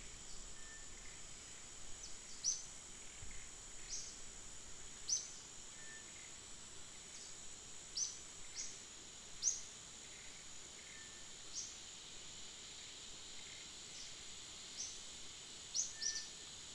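Outdoor ambience of a steady, high insect drone, with short, sharp, upward chirps of birds about ten times, irregularly spaced a second or more apart.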